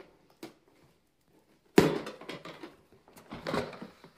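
Cardboard gift box being torn open by hand: a sudden loud rip about two seconds in, then a second stretch of tearing and rustling near the end.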